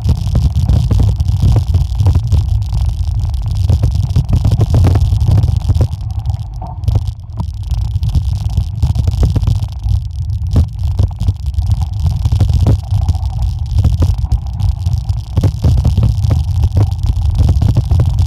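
Wind buffeting the microphone as a heavy, continuous low rumble, over the crunch and rattle of a mountain bike's tyres and frame running fast down a rough gravel track, with many small clicks and knocks.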